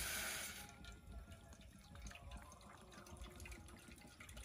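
Water being poured for tea: a steady pouring stream that stops about a second in, followed by light scattered drips.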